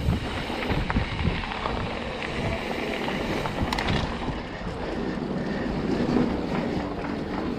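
Wind buffeting the microphone over the steady rumble of a Trek Remedy 8 mountain bike being ridden along a towpath, its tyres rolling on the path with occasional ticks and knocks.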